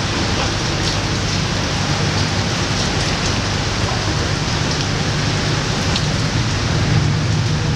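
Steady rain falling on a boat's covered deck and awning, with faint scattered drop ticks, over the low, even drone of the boat's engine.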